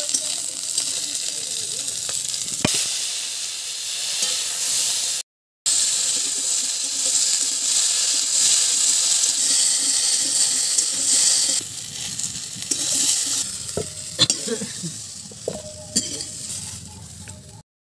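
Pieces of pointed gourd and potato frying in hot oil in a metal wok, a steady sizzle. In the second half a ladle stirs them, knocking and scraping against the pan. The sound cuts out for a moment about five seconds in.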